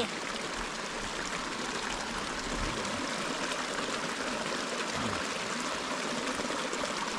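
Water from a spring running in a steady, even flow.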